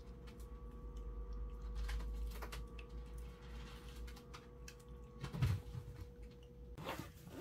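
Quiet room with a steady low hum, scattered faint clicks and a soft knock about five seconds in.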